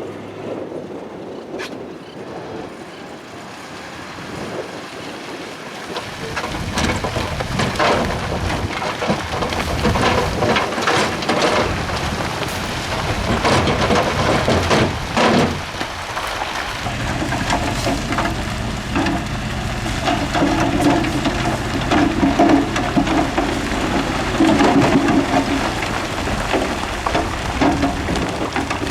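Rock and dirt rumbling and clattering as heavy earthmoving machinery pushes or dumps it, over a running diesel engine. The clatter starts a few seconds in. A steady engine drone comes up under it a little past halfway.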